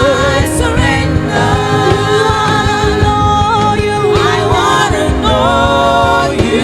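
Gospel worship music: voices singing long, wavering held notes over instrumental accompaniment.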